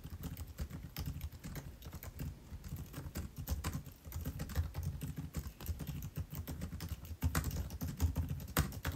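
Fast typing on the scissor-switch keyboard of a 2021 MacBook Pro 14-inch: a continuous, irregular run of quick key clicks, many per second.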